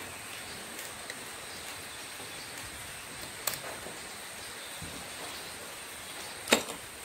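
Two sharp clicks of hand tools against a small electric water pump's housing, about three seconds apart with the second louder, as a stubborn part at the seal end is pried open. A steady hiss runs underneath.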